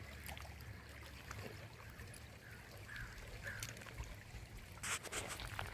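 Faint water lapping and trickling at a lake's edge, with a brief sharper noise near the end.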